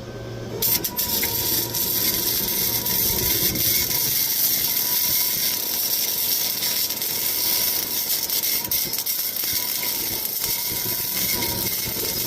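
Welding arc crackling and sizzling steadily as a weld bead is laid on a steel exhaust pipe and hanger, with the welder's voltage turned up for more penetration. It starts about half a second in.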